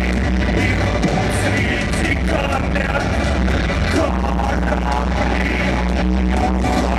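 A man singing live into a microphone over loud rock band music with a heavy, sustained bass, a concert recording.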